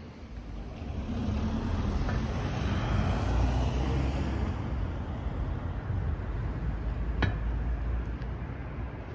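Street traffic: a vehicle passes, its noise swelling over the first few seconds and slowly fading, over a steady low rumble. There is a single sharp click about seven seconds in.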